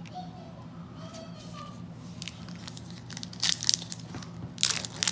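Plastic trading-card pack wrapper crinkling and tearing as it is handled and ripped open by hand. The sharp crackles come in two clusters, about three and a half seconds in and again near the end.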